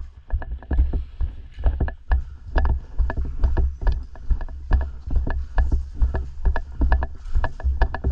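Footsteps and rattling gear of a player on the move, a quick irregular series of knocks and clicks over a low rumble of handling noise on the microphone.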